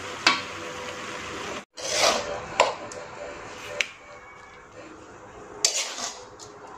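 Metal spatula scraping and clinking against an aluminium wok as cooked greens are stirred and then scooped out onto a plate, with a few sharp clinks spread through. A steady hiss runs underneath at first and cuts off abruptly about a second and a half in.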